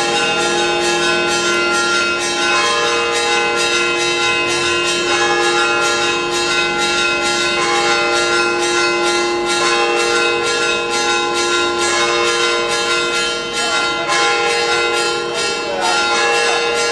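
Church bells pealing in a rapid, unbroken run of strikes, their tones ringing on between blows: festive ringing for a procession.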